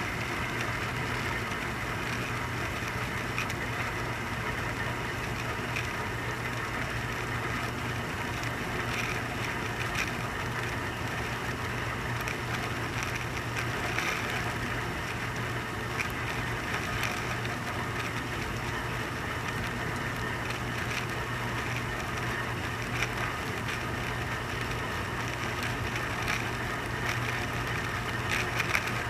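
Dishwasher running, its motor giving a steady low hum under an even rushing wash noise, with a few faint clicks. The owner says this dishwasher is not cleaning.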